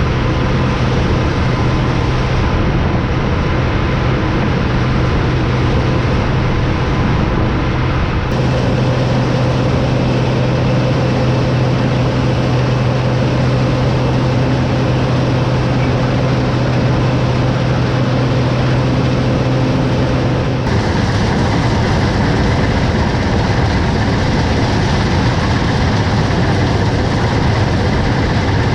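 Heavy farm machinery engine running steadily under load, a constant low hum with a dense mechanical noise over it; the sound shifts abruptly a few times, about 8 and 21 seconds in.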